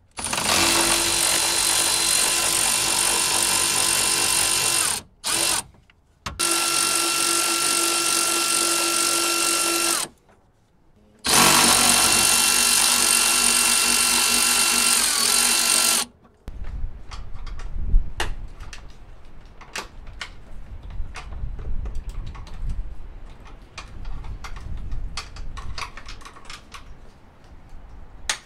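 Milwaukee Fuel cordless ratchet whirring in three long steady runs and one short burst, backing out the fasteners of a pickup's lower plastic air dam. After the runs come scattered clicks and knocks of parts being handled.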